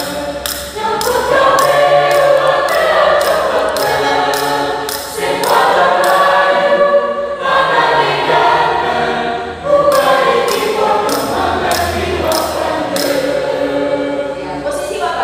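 Mixed choir of men and women singing a cappella at rehearsal, in three sung phrases that each start with a rise in pitch, with short breaks between them.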